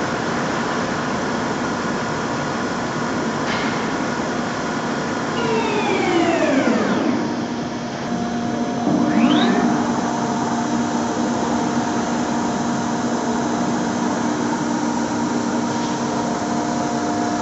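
Dörries Scharmann CNC floor boring and milling machine's spindle drive whining over a steady machine hum; about six seconds in the whine falls away as the spindle slows, and about three seconds later it rises again as the spindle spins back up, then holds steady.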